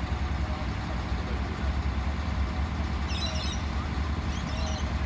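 Diesel engine of a truck-mounted hydraulic tree spade running steadily with a low rumble while it holds a palm tree in its blades. A few short high chirps come in about three seconds in and again near the end.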